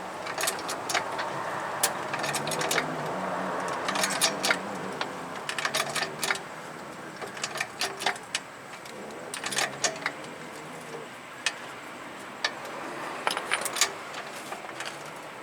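Hydraulic floor jack being pumped by hand, its strokes coming as clusters of clicks and metallic rattles every second or two, as it presses a socket up against a ball joint stud to pop it loose from the steering knuckle.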